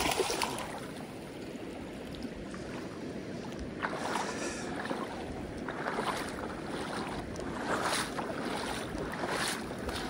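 A hooked northern pike splashing at the surface of shallow river water as it is reeled in, a sharp splash at the start and a few shorter ones after, over a steady rush of water and wind.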